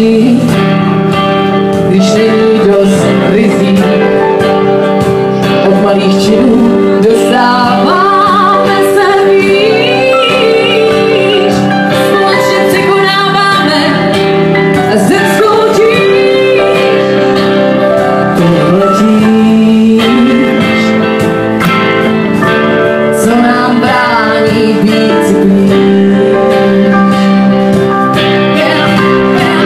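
Live band playing a song: a woman sings lead with wavering, held notes over electric guitar, electric bass and cajón.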